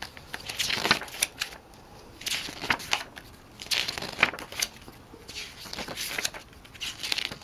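Pages of a glossy CD photo booklet being turned by hand: about five quick paper swishes and rustles, a second or so apart.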